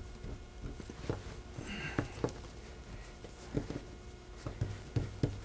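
Hands pushing, pulling and pressing a piece of fresh pasta dough on a wooden board: soft, irregular pats and taps.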